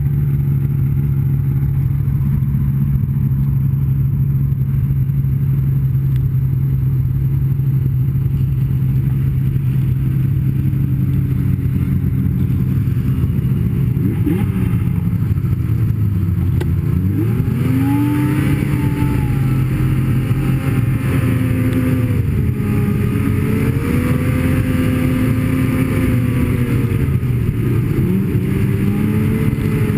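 Snowmobile engine running at a steady pitch, then rising and falling with throttle changes through the second half.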